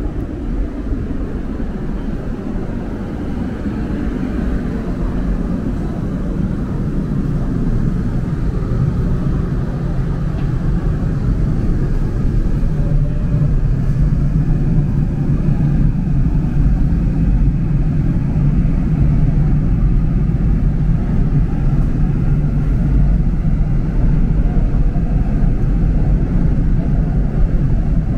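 Seoul Subway Line 2 train running, a steady low rumble with a faint hum that grows gradually louder.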